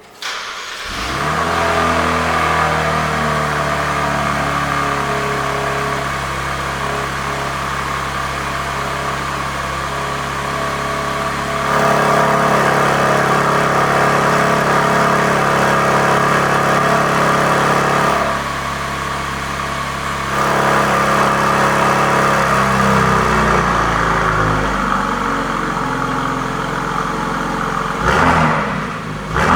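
Genesis GV70 3.5T's twin-turbo V6 through a custom valved exhaust, starting up about a second in and then idling, its loudness stepping up and down a few times. Near the end it gives a couple of short revs.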